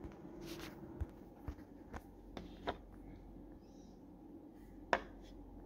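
Scattered small clicks and taps of hard plastic parts being handled: the toothed pulley gear and gearbox housing of a robot vacuum's main-brush drive. A faint steady low hum sits underneath, and the sharpest click comes near the end.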